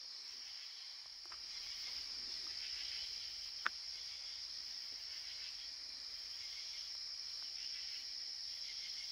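Steady chorus of night insects, a constant high-pitched trill, with a single sharp click about three and a half seconds in.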